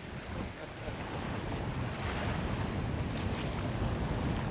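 Wind buffeting the microphone over the wash of surf on a beach, a steady rumbling noise that builds slightly.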